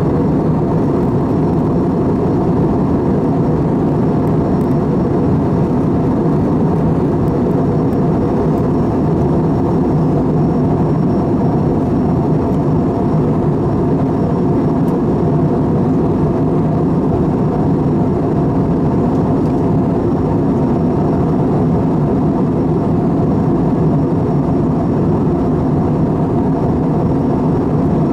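Steady cabin drone of an Airbus A320 in flight, heard from a seat over the wing: engine and airflow noise, low and even, with no change in pitch or level.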